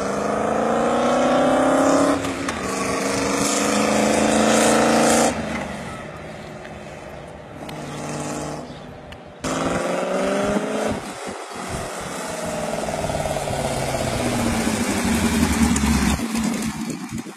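Homemade 392 cc V8 motorcycle engine revving as the bike accelerates, its pitch rising in several runs and dropping away between them.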